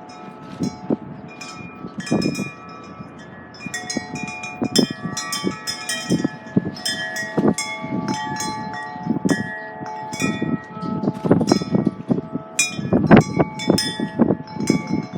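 Wind chimes ringing irregularly in the wind, several tones struck at random and overlapping, with gusts of wind rumbling low underneath.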